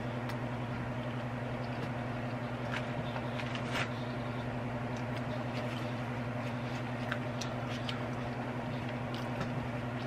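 A steady low hum, with faint scattered clicks of close-miked chewing and a napkin being handled.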